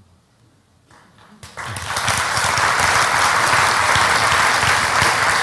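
Audience applause: quiet at first, then clapping breaks out about a second and a half in, swells within half a second and holds steady.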